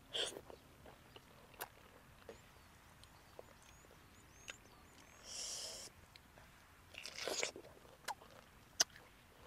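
Close-up mouth sounds of chewing juicy fresh pineapple: soft wet clicks, with two short louder crunchy bursts about five and seven seconds in.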